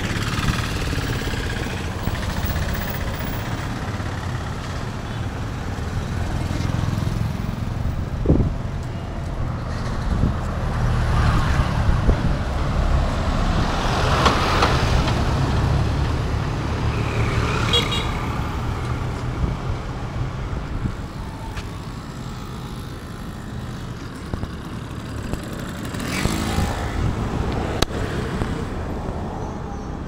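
Road traffic on a town street: a steady low rumble of engines, with one louder vehicle passing about halfway through and a few shorter vehicle sounds later.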